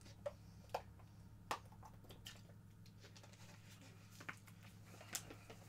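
Near silence: a low steady room hum, with a few faint soft clicks scattered through it.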